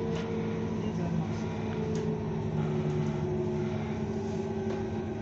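Inside a LiAZ-6274 electric bus moving slowly: the electric drive gives a steady whine made of several tones, one of them sinking slightly in pitch, over continuous road and cabin noise.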